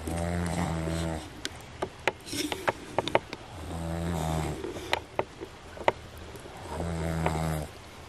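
A man snoring in his sleep: three long, low snores about three and a half seconds apart, with scattered sharp clicks in between.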